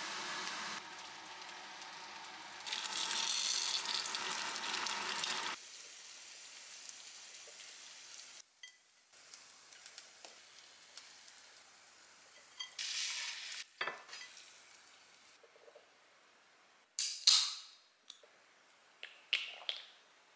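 Instant noodles sizzling in a frying pan as they are stirred with chopsticks, louder after about three seconds and cutting off suddenly after five or six seconds. After that come quieter, scattered clinks of chopsticks on dishes, with one sharp, loud snap near the end.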